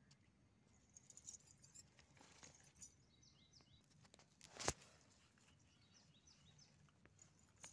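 Faint rustling and scraping of a puppy biting and pawing at a dry coconut husk, with one sharp click a little past halfway. Faint bird chirps come twice, about a third of the way in and near the end.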